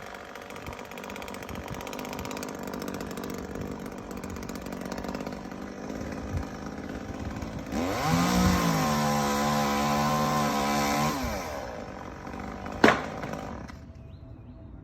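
Chainsaw running at idle, then revved up to a higher, steady speed for about three seconds before dropping back, as when cutting through palm fronds. Near the end comes one sharp crack, after which the saw quietens.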